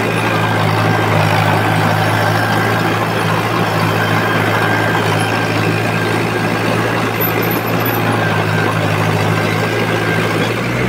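Tractor engine running steadily under load as it pulls a disc harrow through grass and soil, a constant low drone over a broad mechanical rumble.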